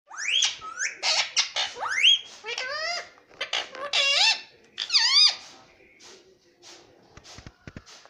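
Indian ringneck parakeet calling: a quick run of loud, high chirps and squawks, many sliding upward in pitch, for about five seconds before it goes quieter. A few soft taps follow near the end.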